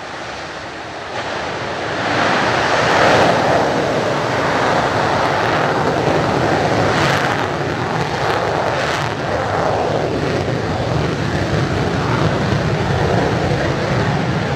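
Twin J79 turbojets of an F-4EJ Kai Phantom II running at high power as the jet rolls for takeoff: a loud, steady roar that builds over the first two seconds and then holds.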